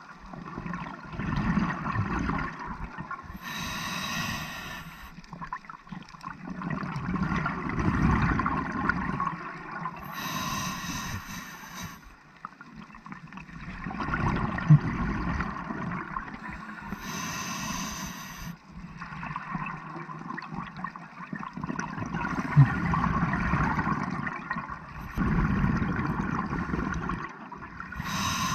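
Scuba diver breathing through a regulator underwater: a short hissing inhale about every seven seconds, four in all, each followed by a longer gurgling rush of exhaled bubbles. Two brief clicks are heard midway.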